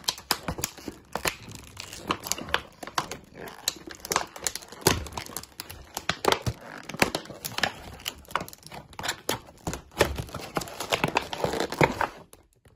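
Clear plastic blister packaging being ripped open and crinkled by hand: a dense, irregular run of sharp crackles and tearing.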